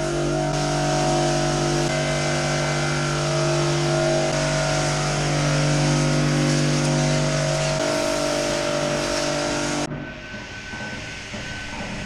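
Pressure washer spraying water onto a tiled milking-parlour floor: a steady hiss of spray over the machine's steady hum. The spray cuts off suddenly near the end, leaving the quieter hum.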